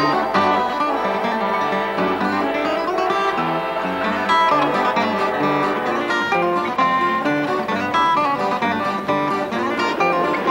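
Instrumental background music of plucked string instruments, led by guitar, in a bluegrass-like style.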